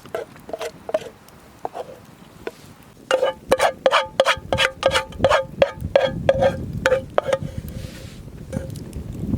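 Metal being struck over and over, each strike ringing with the same clear tone: a few scattered knocks, then a fast run of about three or four a second from about three seconds in, which thins out near the end.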